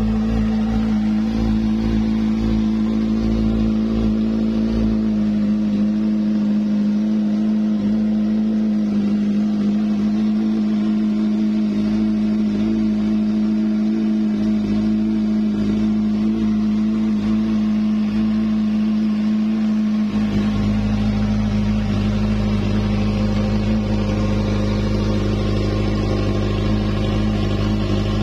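Kawasaki Z1000's 1043 cc inline-four idling steadily through an Akrapovic full exhaust system with a megaphone silencer. The deep low rumble grows fuller about twenty seconds in.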